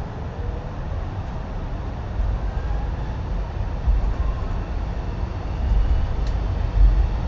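Electric suburban train running, heard from inside the carriage: a low rumble of wheels on rails that grows louder toward the end, with a faint whine gliding in pitch above it.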